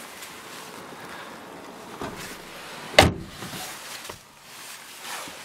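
A Lada Granta's rear car door shutting with one sharp thud about three seconds in, with softer knocks and rustling of someone moving on the back seat around it.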